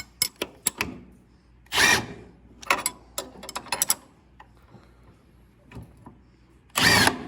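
Ratchet wrench clicking in short runs as the puller bolts under a tractor steering wheel are tightened, with two louder grating metal strokes, one about two seconds in and one near the end.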